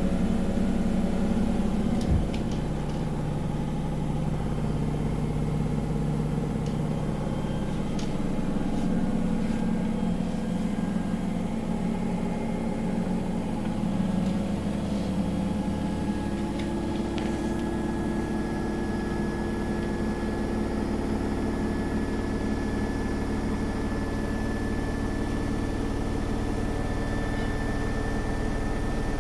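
Samsung WW80R421HFX front-loading washing machine running: a steady motor and drum hum with a few faint clicks, and a thin high whine that rises slowly in the second half as the motor speeds up.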